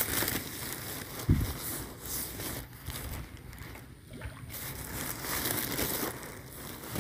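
Footsteps crunching and rustling on dry grass and straw, with a dull thump about a second in.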